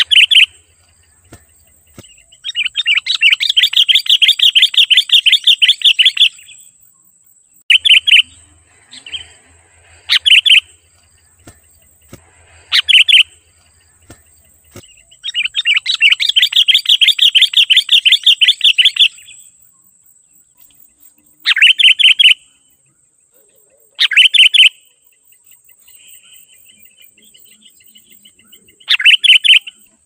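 Sooty-headed bulbul calling loudly: short sharp phrases every few seconds, with two long runs of rapid chattering notes lasting three to four seconds each. A faint steady high whine runs underneath.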